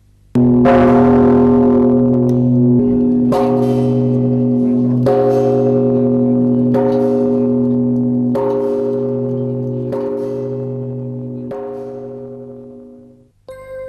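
A bell tolling about seven times, roughly a stroke every second and a half, each stroke ringing on into the next. The strokes fade out near the end.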